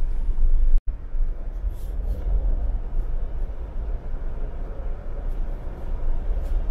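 Steady low road rumble of a vehicle driving, with the sound cutting out for an instant about a second in.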